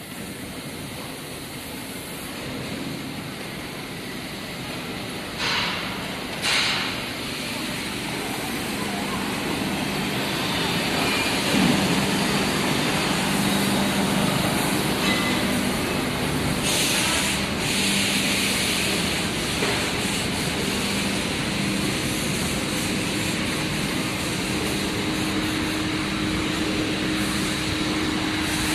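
Steady industrial machinery din in a casting and forging workshop, with a low hum that grows louder as it goes on and a few short hissing bursts.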